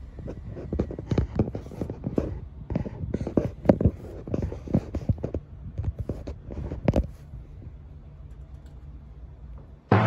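Rapid, irregular plastic clicks and knocks from the washing machine's inlet hose and its screw connector being handled at the back of the machine, for about seven seconds, then only a low steady hum.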